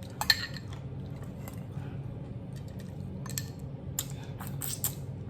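Soft squelching and scattered light clicks of cooked food and a dish being handled, over a steady low hum.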